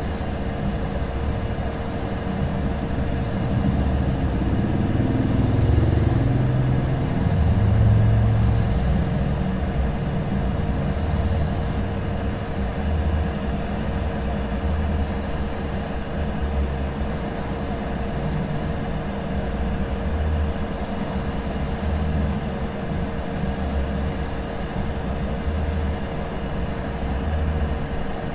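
Hot air rework station blowing on a phone board at a low airflow setting (3) and 380 °C: a steady rush of air with a constant hum and a low uneven rumble, swelling slightly about five seconds in. The CPU's solder has not yet melted.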